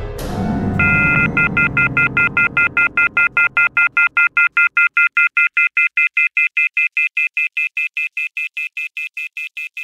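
Telephone line tone: a high electronic tone starts about a second in, holds briefly, then beeps rapidly, about five times a second, slowly fading. A lower sound left over from the score dies away under it over the first few seconds.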